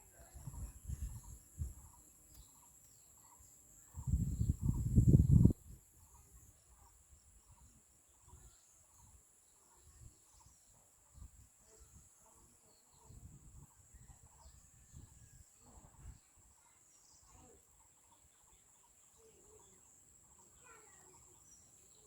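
Steady high-pitched drone of insects such as crickets, with a faint short call repeating about once or twice a second and a few bird chirps near the end. Low rumbling bursts come over it, loudest from about four to five and a half seconds in.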